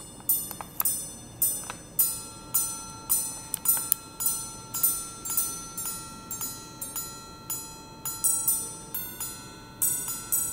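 Three Patek Philippe minute-repeater wristwatches, one an 18K yellow gold 5074J, striking the time on their gongs at once. The strikes are clear, ringing tones at low and high pitches that overlap, about two or three a second, each dying away before the next.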